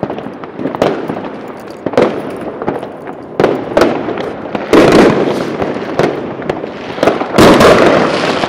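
Fireworks going off: a string of sharp bangs and crackling, with two much louder bursts about five and seven and a half seconds in.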